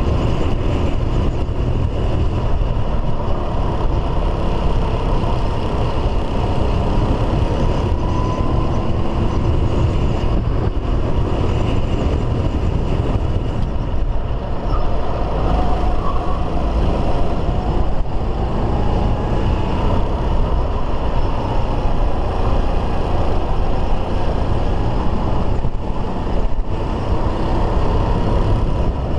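Racing kart engine running at speed through a lap, its faint note gliding gently up and down, under a heavy steady low rumble from the onboard camera.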